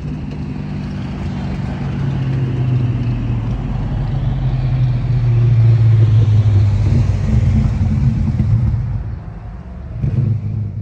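Car engine running at low revs, its low steady note growing louder until about six seconds in, then fading, with a brief swell again near the end.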